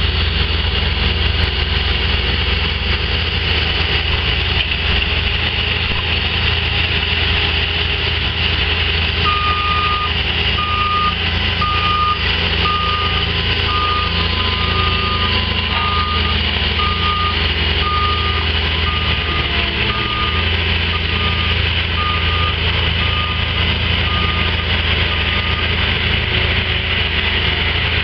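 Diesel road-work machinery running steadily, a Cat skid steer with an asphalt milling attachment at work. From about a third of the way in until near the end, a backup alarm beeps about once a second.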